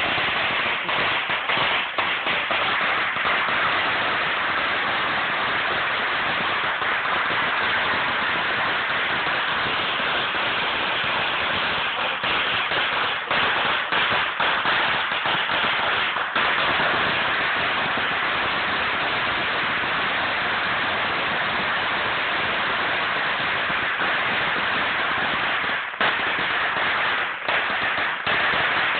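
A huge string of firecrackers going off in a continuous, dense rapid-fire crackle, the individual bangs running together. The rattle barely lets up, with only a few brief dips.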